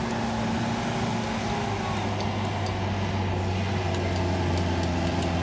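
A 4x4 SUV's engine running at low revs as it crawls through deep mud, a steady low drone that strengthens slightly about two seconds in.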